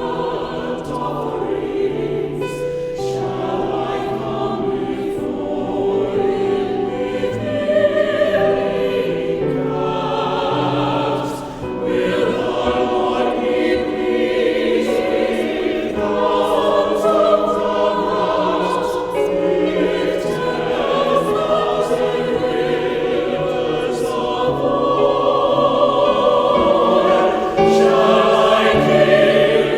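Church choir singing in parts, with held low notes sounding beneath the voices; it gets a little louder near the end.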